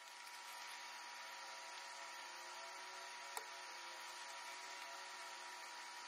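Faint steady hiss with a thin steady hum tone, background noise of a fast-forwarded recording, with one small click about three and a half seconds in.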